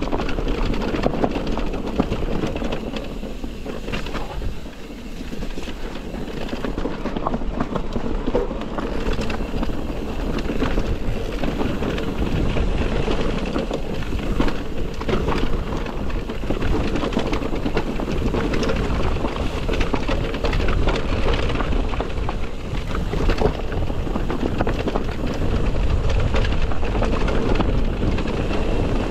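Wind rushing over the microphone while an electric mountain bike rattles over rough trail: a constant loud rumble broken by many small knocks.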